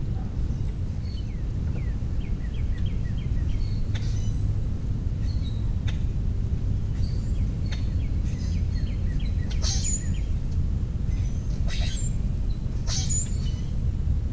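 Wild birds calling: two runs of quick, falling chirps and several sharp high calls, over a steady low outdoor rumble.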